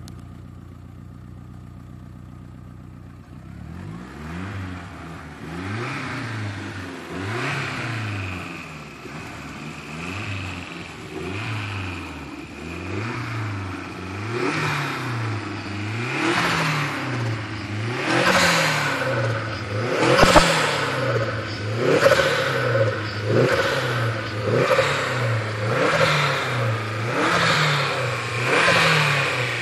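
Fiat Coupé engine idling steadily, then revved up and down over and over, about one blip every second and a half, getting louder as it goes. A single sharp click about two-thirds of the way through.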